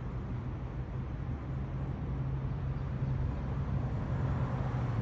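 Street traffic with a steady low engine hum from a nearby motor vehicle, growing slightly louder near the end.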